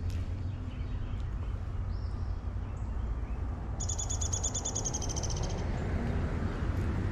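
A bird calls a rapid, evenly pulsed trill about four seconds in, lasting under two seconds, with a few faint short chirps elsewhere, over a steady low rumble.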